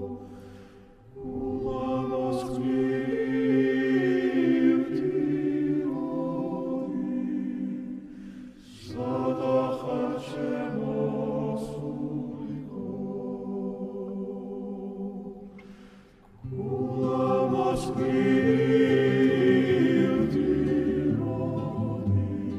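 Background music: a choir singing slowly in long held notes, in phrases with short pauses between them.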